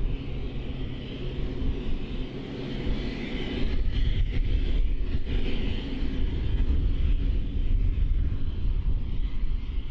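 Aircraft engine noise: a steady low rumble with a hiss above it, rising and falling in level.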